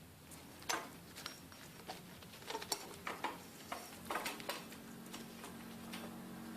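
Small clicks and taps of bicycle headset parts being fitted onto the fork's steerer tube, a handful of scattered light knocks.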